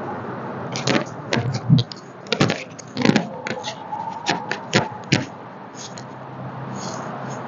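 Neck joints popping under a chiropractic neck adjustment: a quick series of sharp cracks and clicks between about one and five seconds in, over a steady low hum.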